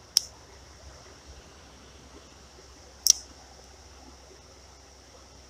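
Two sharp clicks about three seconds apart, from an ultralight spinning reel's bail being worked during a cast, over a faint steady hiss of creek water.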